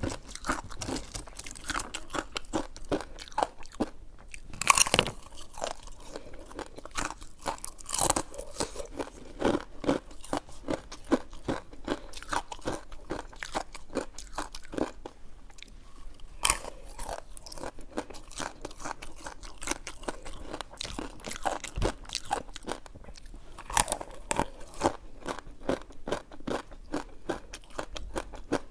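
Close-miked chewing and biting of coconut sticky rice cake: a dense, continuous run of mouth clicks and smacks, with a few louder bites about 5, 8, 16 and 24 seconds in.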